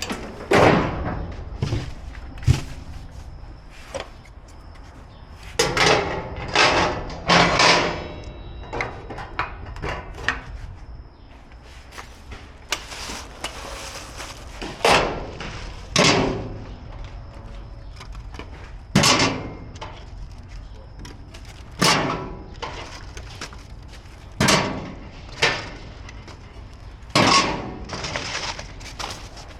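Irregular knocks and clunks of gas grill parts being handled and fitted during assembly, about a dozen over the span, some in quick clusters of two or three, each with a short ring.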